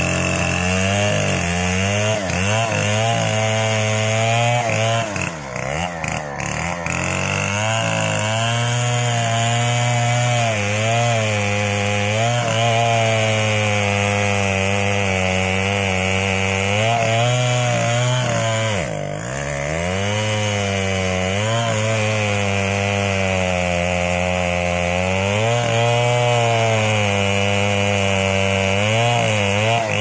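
070 chainsaw, a large two-stroke saw with a long bar, cutting into a mahogany trunk under load. Its engine pitch wavers as the chain bites and sags briefly, dropping sharply once about two-thirds of the way through before picking up again.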